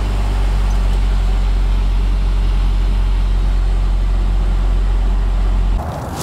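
Exhaust of a turbocharged Saab running at a steady idle, a low even rumble, while pouring out thick white smoke: the owner says the Garrett GT1752 turbo has blown and the engine is burning oil. The rumble cuts off abruptly just before the end.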